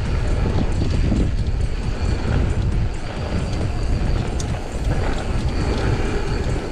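Mountain bike ridden fast down a dirt trail: knobby tyres rumbling over packed dirt and roots, with a steady stream of sharp rattles and knocks from the bike over bumps. Wind buffets the helmet or chest camera's microphone.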